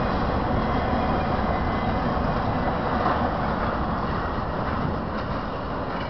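Intermodal freight train cars (trailers on flatcars and stacked containers) rolling past on the rails: a steady noise of steel wheels on track, easing a little near the end.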